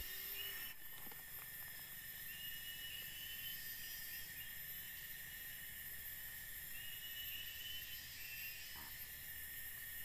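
Tropical forest insects droning steadily at several high pitches, with a short call recurring every few seconds.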